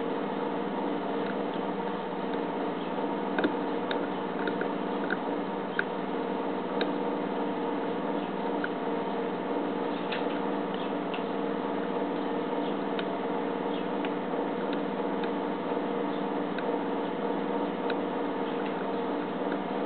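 A hook pick working the pins of a cutaway brass pin-tumbler lock cylinder fitted with springy key pins and serrated driver pins, giving light, irregular clicks and ticks, in small clusters, over a steady background hum.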